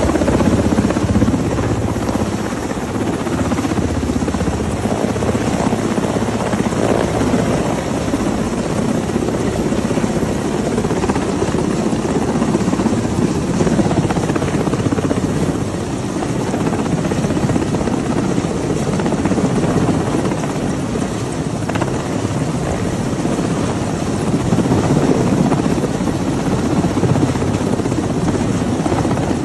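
Mil Mi-17 military transport helicopter hovering close by: a loud, steady rotor beat over the continuous roar of its turbines.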